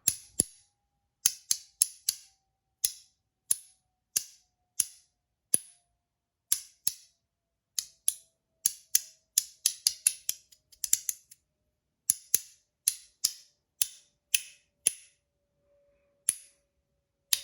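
Zirconium mini milk cap, a magnetic haptic fidget, being snapped over and over: sharp, bright clicks at an irregular pace of about one or two a second, with a quick flurry of clicks around the middle.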